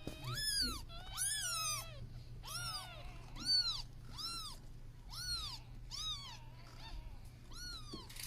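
A kitten meowing over and over in short, high-pitched calls, about one every second or a little faster.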